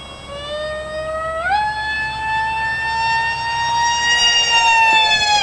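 Electric RC flying wing's Mega 4-turn brushless motor and 6x4 propeller whining in flight. The whine climbs in pitch about one and a half seconds in as the throttle goes to full, then holds high and steady.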